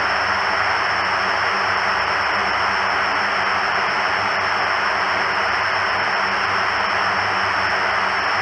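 KC-130J Super Hercules's four Rolls-Royce AE 2100D3 turboprop engines and propellers running while the aircraft taxis: a steady, loud drone with a thin high whine over it.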